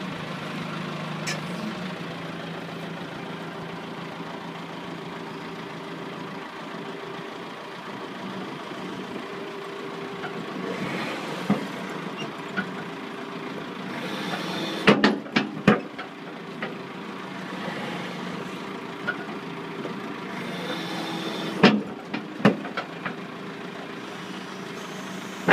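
Cat 416 backhoe loader's diesel engine running steadily while the backhoe boom swings, with several sharp knocks from the boom and swing frame: one about halfway, three close together a few seconds later, and two more near the end.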